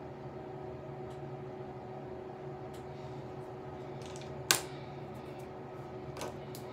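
Steady room hum with a few fixed tones, like a fan or air conditioner running, with one sharp click about halfway through and a few faint ticks.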